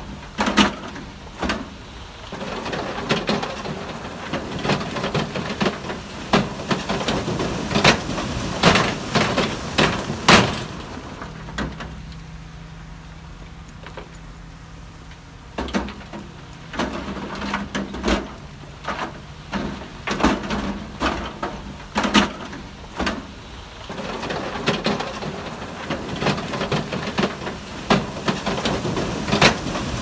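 Heavy earthmoving machine's diesel engine running under a stream of sharp clanks and knocks; for a few seconds around the middle the knocks stop and only the steady engine hum is left.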